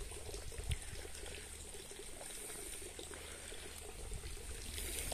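Water trickling and running steadily.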